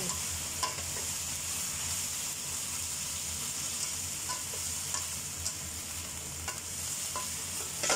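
Bean sprouts and chopped vegetables sizzling in oil in a nonstick wok while being stirred and tossed with a spatula. Light clicks of the spatula against the pan come now and then over the steady sizzle.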